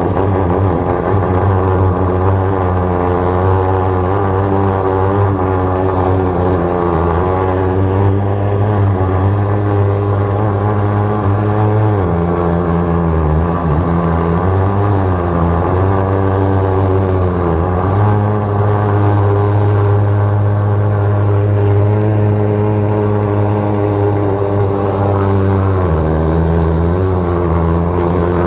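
Engine of a 13-horsepower high-pressure sewer jetter running steadily under load. Its pitch drops briefly and recovers several times, about twelve, fourteen, eighteen and twenty-six seconds in.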